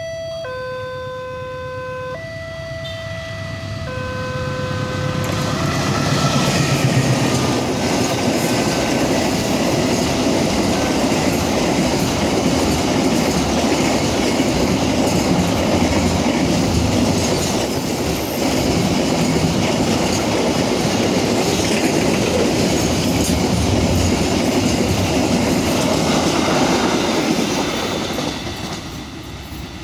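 Diesel locomotive's horn blowing a series of alternating two-tone blasts for the first few seconds, a warning for the level crossing. Then a long container freight train rumbles and clatters past on the rails, fading near the end.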